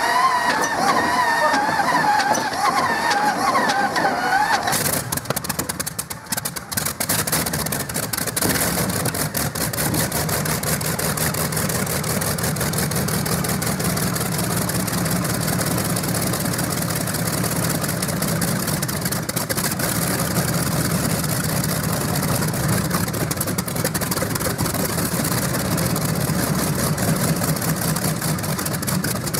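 Radial engine of a pulling tractor being started: it fires about five seconds in, falters briefly, then settles into a steady run.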